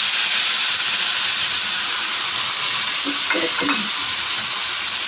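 Chopped tomatoes sizzling in hot oil and whole spices in a karahi, just tipped in: a loud, steady hiss.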